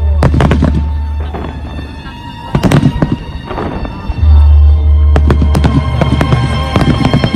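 Aerial fireworks shells bursting: one near the start, another a little before the middle, and a rapid run of bursts in the second half. Music with a deep, steady bass plays throughout.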